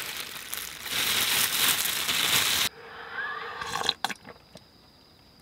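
A person slurping cold bean sprout soup: a long sucking hiss that stops abruptly about two and a half seconds in, then a few faint clicks.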